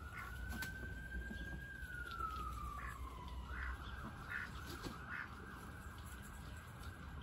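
An emergency-vehicle siren wailing, one long tone that rises a little, falls slowly about two seconds in, then holds steady. Short duck calls sound four times over it, about three to five seconds in.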